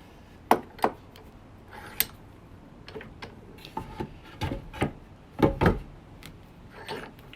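Bench vise being cranked open: a series of sharp metal clicks and knocks from the handle and screw, a few spaced out, then a quicker run of louder ones about four to six seconds in.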